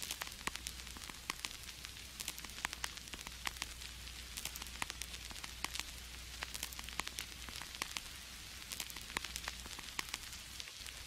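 Faint crackle added in editing, like the surface noise of an old record: a steady hiss peppered with irregular clicks and pops over a low hum.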